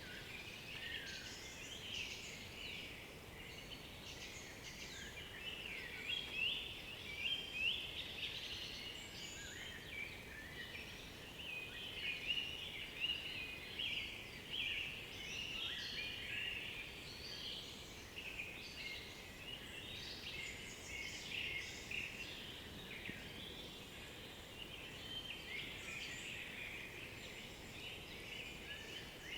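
Several forest songbirds singing at once, a dense unbroken mix of short high notes and phrases, with a few louder phrases about a quarter of the way in and again near the middle.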